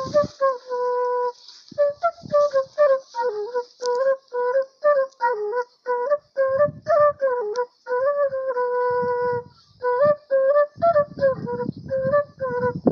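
A wooden transverse flute playing a baião tune: a lively melody of short detached notes with a few longer held notes. A low rumble comes and goes underneath.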